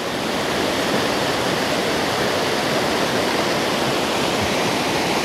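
Creek water rushing steadily down a bedrock slide and small waterfall, running high after heavy rain.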